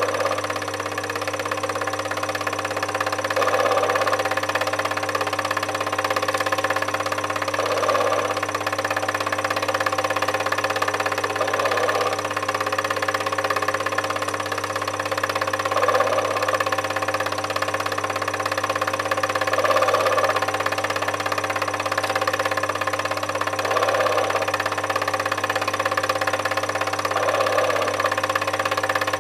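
8 mm film projector running: a steady mechanical whir and hum, swelling slightly about every four seconds.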